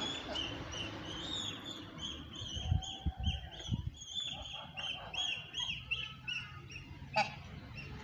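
A duckling peeping over and over, short high calls about three a second, stopping about six and a half seconds in. A few low thuds come around three seconds in, and a sharp click about seven seconds in.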